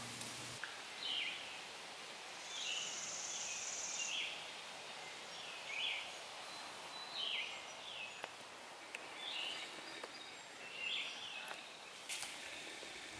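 A bird repeating short, falling call notes every second or so, over faint outdoor background noise.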